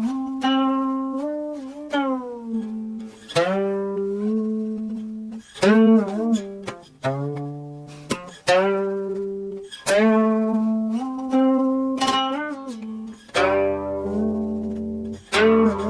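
Background music: a slow melody on a plucked string instrument. Single notes are struck and left to ring, and some of them slide up or down in pitch.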